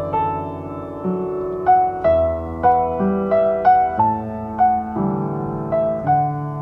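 Slow, gentle piano music: a melody of single struck notes, about two a second, over low held chords, in an instrumental passage of a love song between sung lines.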